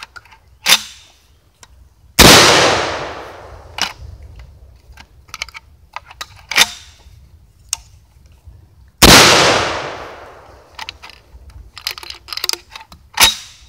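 Two blasts from an SDS Lynx 12-gauge semi-automatic shotgun, about seven seconds apart, each trailing off in a long echo. Several sharp metallic clacks of the gun's action being handled come between and after the shots. The shells are 1145 fps loads that the gun doesn't cycle well.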